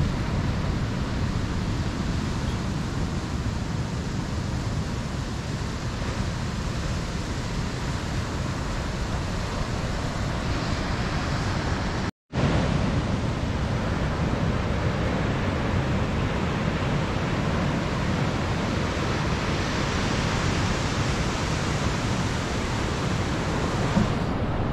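Steady rush of ocean surf breaking on a beach, mixed with wind on the microphone. The sound cuts out completely for a moment about halfway through.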